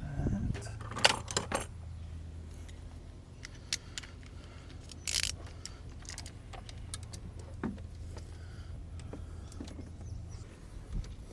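Scattered metallic clinks and jangles of hand tools, sockets and bolts being handled while an idler pulley is bolted onto the engine, over a steady low hum.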